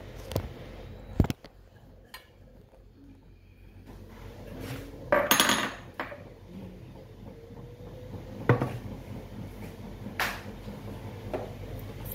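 Dishes and utensils being handled on a kitchen counter: a sharp knock about a second in, a scraping rattle lasting about a second midway, and two more knocks later.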